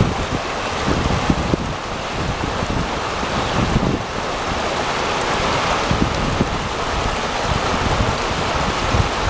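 Fast glacial river rushing over rocks, with gusts of wind buffeting the microphone.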